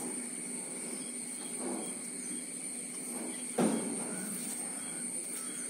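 Steady high-pitched insect buzzing, with one sudden short handling noise about three and a half seconds in as hands work the mango graft.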